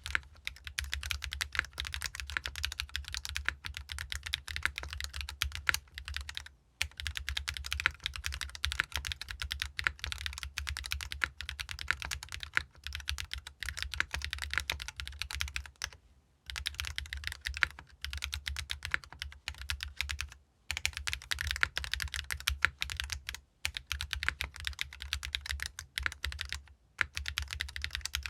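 Fast typing on a GEON F1-8X mechanical keyboard with Keygeek raw (unlubricated) switches, an aluminium plate, O-ring mounting, no foam and ABS double-shot keycaps. It is a dense, continuous stream of keystrokes, broken by five brief pauses.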